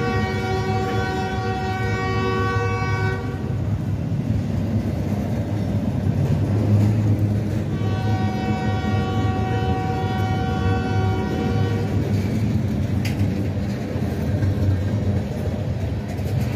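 Locomotive horn sounding two long blasts, a chord of several tones: the first dies away about three seconds in, the second runs from about eight to twelve seconds in. Both sound over the steady low rumble of the train.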